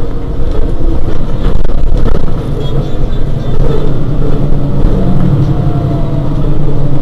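Mercedes-Benz Citaro G C2 articulated bus's diesel engine idling steadily with the bus standing still.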